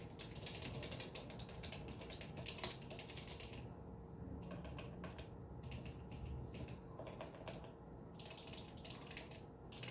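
Typing on an HHKB Pro 2 with Topre switches fitted with KLC 35g domes, silicone #3 rings and Amano marble blank keycaps: a quick, steady stream of deep-sounding keystrokes, with two short pauses and one sharper keystroke about two and a half seconds in.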